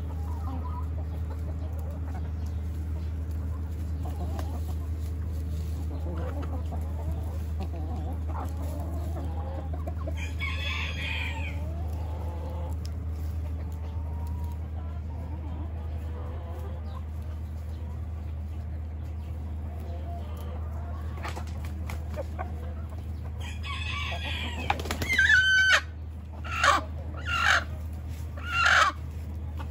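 Backyard chickens and roosters calling as they forage, over a steady low hum. A brief call comes around ten seconds in; near the end a rooster crows in one long loud call, followed by three short loud calls about a second apart.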